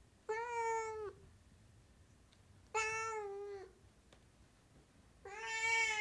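Sphynx cat meowing three times, about two and a half seconds apart. Each meow is a drawn-out call at a steady pitch that drops at the end, and the third is the longest and loudest.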